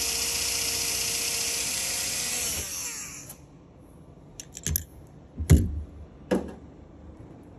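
Cordless drill running steadily as it drills out the aluminum wingtip end cap, then spinning down about three seconds in. A few knocks follow, the loudest about five and a half seconds in, as tools are set down in a plastic tool tray.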